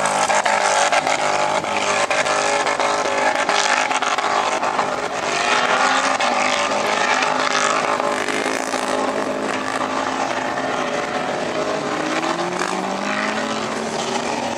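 Off-road 4x4 engine running hard at high revs, its pitch rising from about twelve seconds in.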